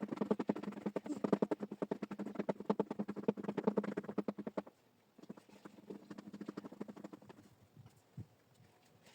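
Hands patting and working soft clay: a quick run of soft taps, about ten a second, which fades out a little before halfway and comes back fainter.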